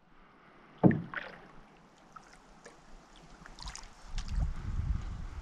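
Canoe being paddled on a river: a sharp knock about a second in, then the light splashing and dripping of paddle strokes in the water, with low rumbling toward the end.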